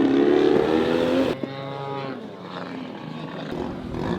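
Radio-controlled model aircraft engine running, its pitch rising for about a second before the sound cuts off abruptly. A fainter, higher engine-like tone follows.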